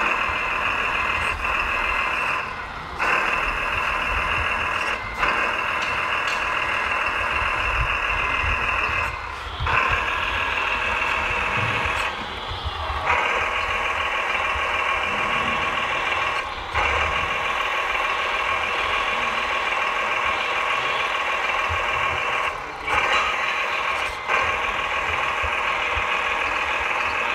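Hydraulic pump of a radio-controlled MAN tipper truck's loader crane whining at a steady pitch while the grab and boom are worked, stopping for short breaks every few seconds.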